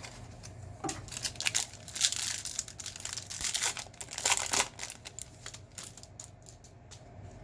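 A baseball card pack's wrapper being torn open and crinkled by hand, in a run of crackling rustles with two louder bursts of tearing and crumpling partway through.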